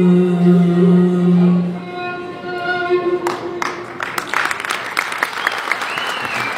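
A male voice holds the long final note of a Turkish ağıt (folk lament), ending about two seconds in, with a higher sustained tone fading out around a second later. The audience then starts applauding, with a few whistles near the end.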